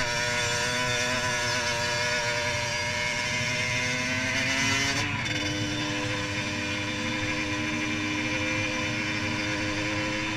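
HM Derapage 80cc motorcycle engine pulling steadily under way, held to moderate revs because it is still being run in. About halfway through the note breaks briefly and shifts, as at a gear change, then runs on steadily.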